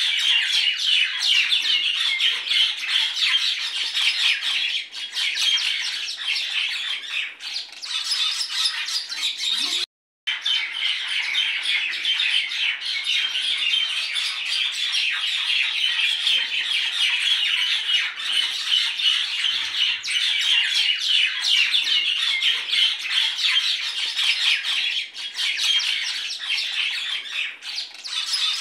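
A flock of birds chirping and squawking in a dense, continuous chatter, broken by a short silent gap about ten seconds in.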